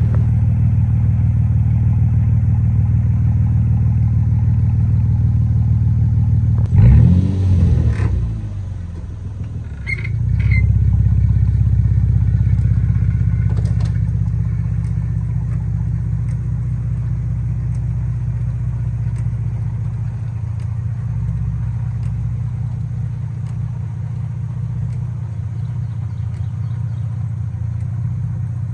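A car engine idling steadily, with a brief rise and fall in revs about seven seconds in.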